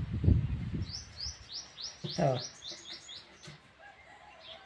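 A bird chirping: a quick run of about ten short, high chirps, each falling in pitch, over about two seconds. A low rumble comes before it, and a brief voiced sound from a man cuts in partway through.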